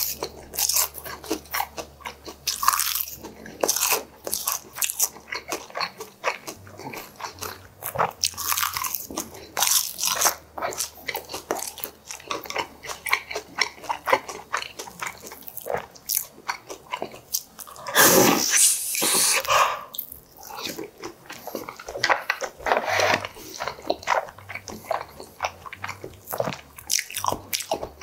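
Close-miked chewing of a Korean meal of cockle bibimbap and kimchi: many short crunches and wet mouth clicks. A louder, longer noisy stretch comes about two-thirds of the way in.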